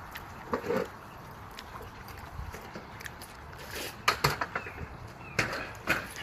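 Scattered knocks and taps from handling a window sash and its vinyl trim, a few sharp ones about four seconds in and near the end, with birds chirping in the background.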